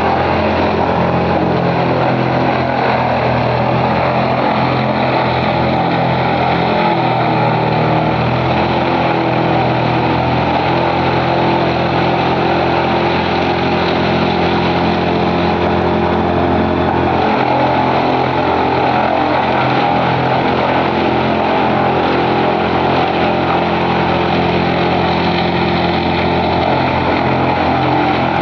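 Large wood chipper running loud and steady, its engine hum under a dense mechanical noise, with small shifts in engine pitch a couple of times.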